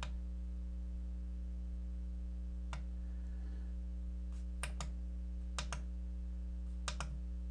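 Sharp plastic clicks from the front-panel buttons of an Opus BT-C3100 battery charger as the charge current setting is stepped through. There is one click a little under three seconds in, then three quick double clicks about a second apart. A steady low electrical hum runs underneath.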